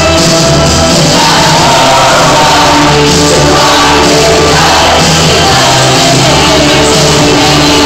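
Karaoke: a group of girls singing together into one microphone over a loud rock backing track, with shouts among them.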